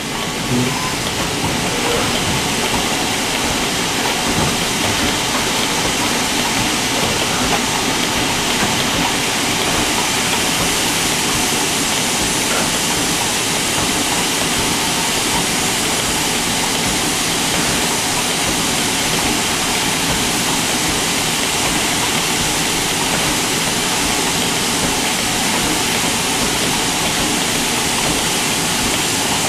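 Stanier Black Five steam locomotive 45407 standing with steam blowing off from its safety valves: a loud, steady hiss that builds over the first second or two and then holds without any chuffing beat.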